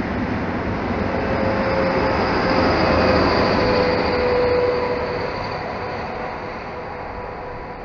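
Freight train of hopper wagons rolling past, a steady rumble of wheels and wagons. A steady whine joins in about a second and a half in and is loudest as the locomotive at the tail of the train passes. The sound then fades as the train draws away.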